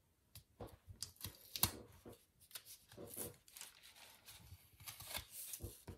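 Paper stickers handled by hand on a planner page: faint, irregular crinkling, rustling and light ticks as a sticker is pressed down and picked at between the fingers.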